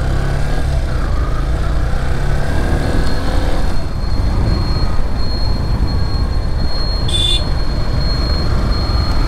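Yamaha FZS V3 motorcycle riding along, its single-cylinder engine running under a heavy steady rumble of wind on the rider's camera microphone.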